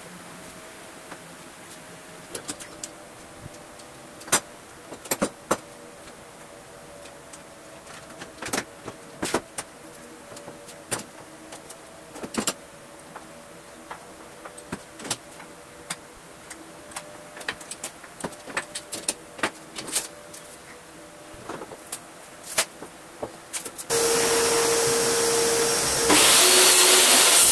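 Irregular clicks and knocks of metal F-clamps and bar clamps being set and tightened on a wooden glue-up, over a faint steady hum. Near the end a table saw starts and runs loudly, getting louder again a couple of seconds later.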